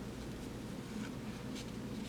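Faint handling of paper baseball cards: a couple of light slides and ticks as cards are moved, over a steady low room hum.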